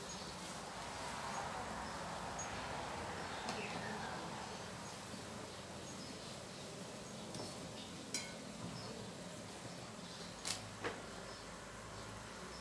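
Chicken-feet soup at a full boil in a large aluminium pot: the broth bubbles with a steady hiss. Faint short high chirps come and go throughout, and there are a few sharp clicks, one about eight seconds in and two close together near the end.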